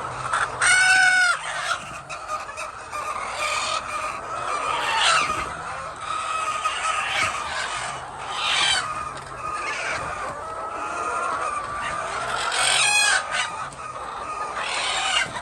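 A flock of hens clucking and calling over one another, with two louder, sharp squawks: one about a second in and one near the end.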